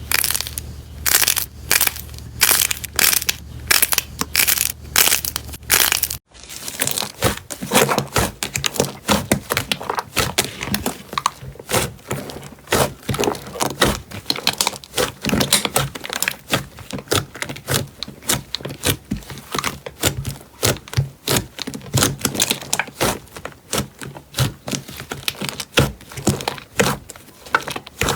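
Slime being squeezed and pressed, making sharp crackling pops, about two a second at first. After a cut about six seconds in, a denser run of crackling and popping follows.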